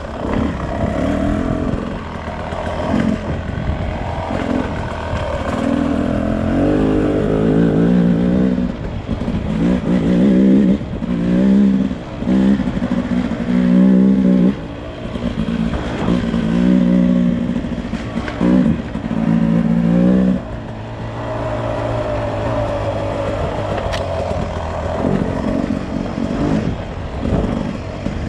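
Beta RR 300 Racing's single-cylinder two-stroke engine revving in repeated surges of throttle with short drops between, about every second or two, then running steadier and lower for the last several seconds.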